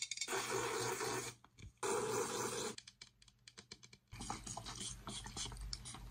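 Aerosol spray deodorant hissing in two bursts of about a second each, followed by a run of quick clicks and rustles.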